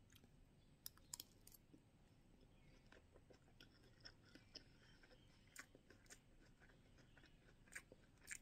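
Faint chewing and mouth sounds of someone eating fried rice, with a few short sharp clicks, the loudest about a second in and near the end, as a metal spoon scoops rice from a takeaway box.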